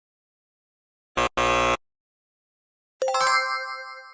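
Game-show sound effects: a short buzzer blip then a longer flat buzz about a second in, and near the end a bright ringing ding that fades slowly, a correct-answer chime.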